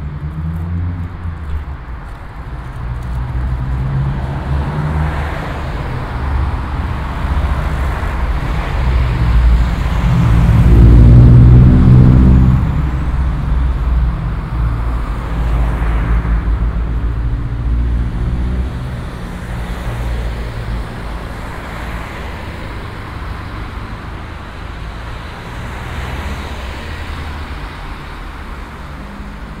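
City bus engines running with a steady low rumble. One bus passes close, loudest about ten to thirteen seconds in, then fades away.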